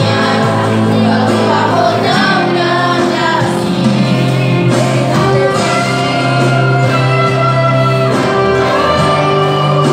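Two children, a girl and a boy, singing a Christian praise song over microphones, with acoustic guitar accompaniment.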